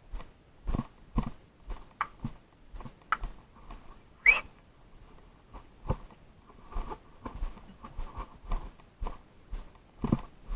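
Footsteps at a walking pace, about two a second, with a sharper click or knock about four seconds in.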